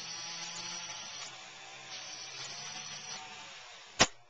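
Compressed air from an air compressor hissing into a homemade air-cannon pressure chamber as it is filled toward 60 psi, with a faint low hum under the hiss. The hiss stops about three seconds in, and a single sharp click follows about a second later.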